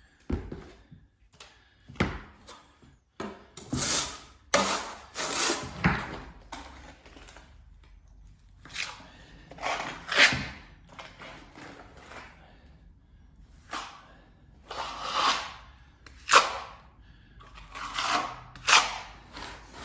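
Trowel scraping as bonding plaster is spread and pressed into the gaps around a wall socket box, in irregular strokes of about a second with short pauses between them.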